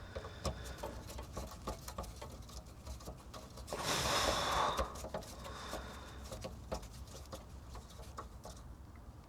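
Small irregular clicks and taps as parts and wiring are handled during reassembly, with a louder rustling scrape lasting about a second, roughly four seconds in.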